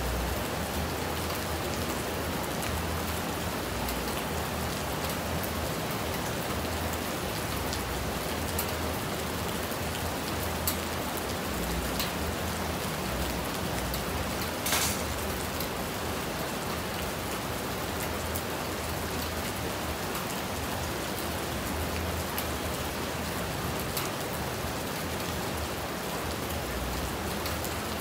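Steady rain falling, an even wash of noise with scattered sharp drop ticks, the sharpest about fifteen seconds in.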